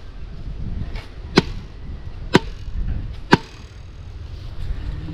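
Three sharp wooden knocks about a second apart: a post of a bamboo vegetable trellis being pounded with a long wooden pole.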